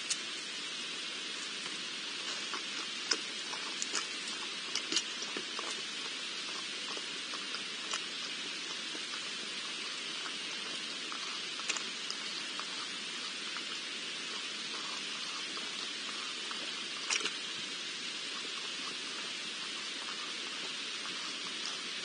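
Wild boar drinking and rooting at the edge of a pool: scattered short clicks and small splashes over a steady, even hiss.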